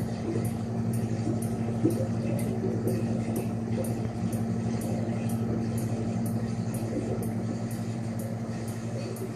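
Reef aquarium equipment humming steadily, a low electrical hum like that of running pumps, with a faint high ticking repeating about two and a half times a second.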